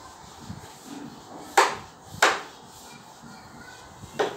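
Whiteboard duster being wiped across the board, with three sharp knocks as it strikes the board: two about half a second apart a second and a half in, and one near the end.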